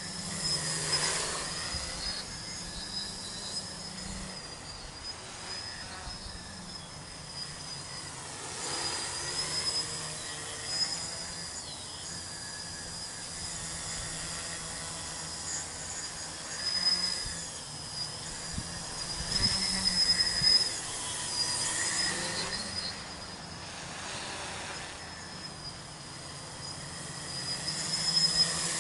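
Small home-built tricopter in flight, its three 2216 900 kV brushless motors spinning 8x4.5 carbon-fibre props: a steady high whine over a lower propeller hum that rises and falls as the throttle changes, swelling louder several times.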